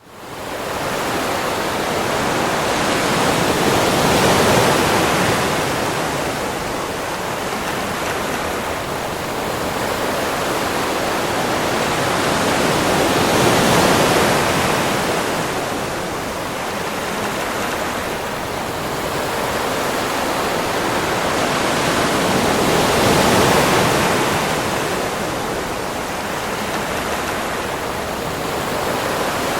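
Sea waves washing onto a beach: a continuous rush of surf that swells and eases about every nine to ten seconds, fading in at the very start.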